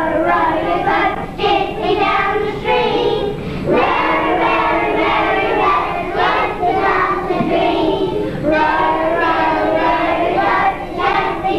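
A class of young children singing a song together, in phrases with short breaks between them.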